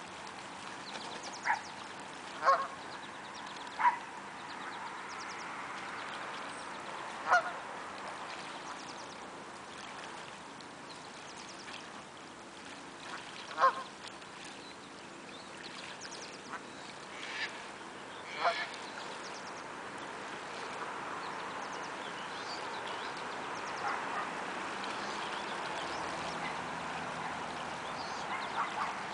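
Canada geese honking now and then: about six short single honks at irregular intervals, the loudest around the middle, over a steady background hiss.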